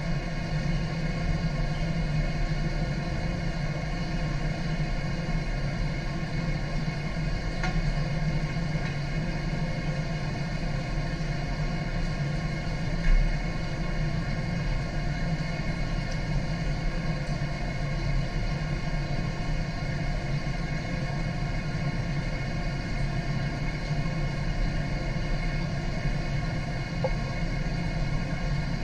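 Steady low mechanical hum with a rushing noise underneath, from the fish tank's water circulation and pumps, with a brief louder swell about 13 seconds in.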